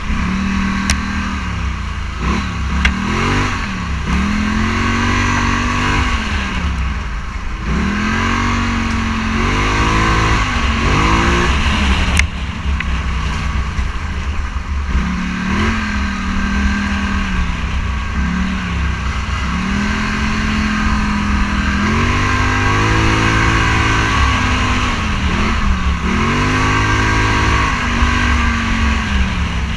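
Scrambler 1000 motorcycle engine under way, its pitch rising and falling repeatedly as the throttle opens and closes through the gears. A steady rush of wind and road noise runs underneath.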